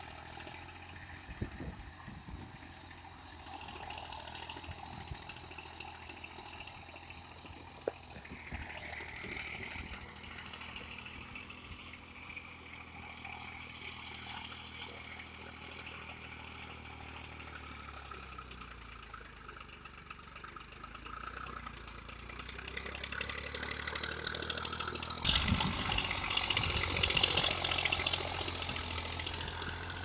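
Indo Farm 2035 DI 35 HP tractor's diesel engine running steadily under load, pulling a rotavator through wet paddy mud. It grows louder from about 25 seconds in, with a rushing, splashing hiss of the rotavator churning mud and water.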